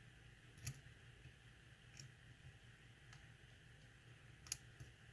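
Faint, sparse clicks of a thin stainless-steel lock pick working the pins inside a lock, about five light ticks with the loudest a little before the end, over a low steady background hum.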